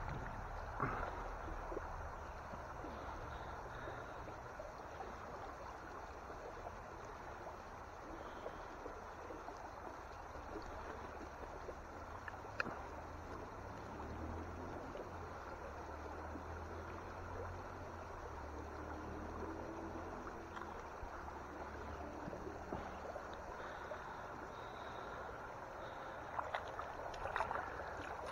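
Shallow stream rippling over a stony bed, a steady water sound, with a low rumble beneath and a few small knocks, one sharp click about halfway through and several more near the end.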